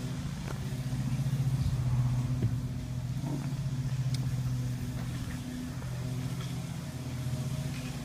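A motor running steadily: a low hum with a fast even pulse, growing louder over the first couple of seconds and then holding.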